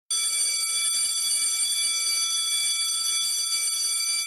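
An electric alarm bell rings loudly and without a break, starting abruptly. Near the end the ringing stops and the bell is left to ring out.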